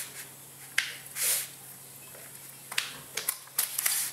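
Kitchen knife cutting the fat off slices of cooked ham on their paper wrapping: scattered sharp clicks and taps, one about a second in and a quick run of them near the end, with a short rustle just after the first click.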